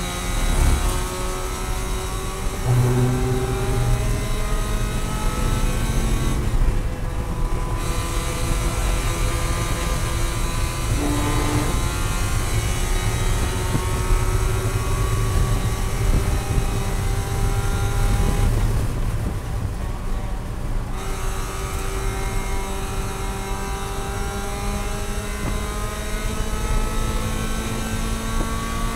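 Spec Miata race car's four-cylinder engine running hard, pitch climbing slowly under acceleration with a few drops where the driver shifts or lifts, over steady road and wind noise.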